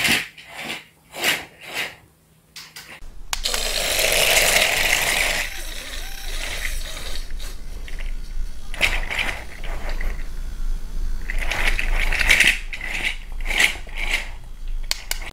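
Motorised snake toy's small motor and gears running: sharp clicking for the first few seconds, then a continuous whirring rattle as the toy wriggles.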